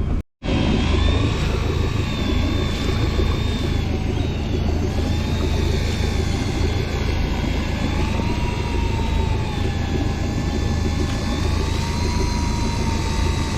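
Boat engine running steadily underway, a deep hum under a whine that slowly wavers in pitch. The sound cuts out completely for a moment just after the start.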